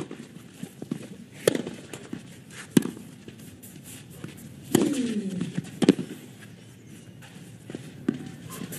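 Tennis rally on a clay court: about four sharp racket hits on the ball, a second or two apart, two of them with a player's grunt that falls in pitch. Quieter after the last hit near the six-second mark.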